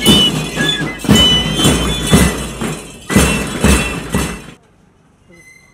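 Loud music with a heavy, regular beat and a high melody, cutting off suddenly about four and a half seconds in.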